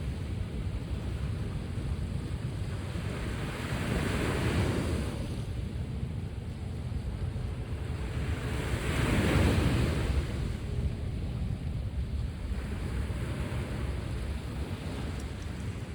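Sea waves breaking on a shore, a steady wash of surf that swells with each wave; the biggest wave breaks about two-thirds of the way in.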